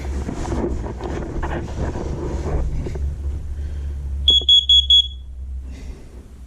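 First Alert carbon monoxide alarm's beeper giving four quick high-pitched beeps as it starts up after being hung on its wall screws, before its display shows a reading. The beeps follow a few seconds of rubbing and handling noise from the unit being settled on the wall.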